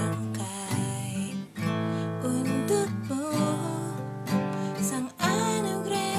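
Acoustic guitar strumming chords, with a sung melody over it.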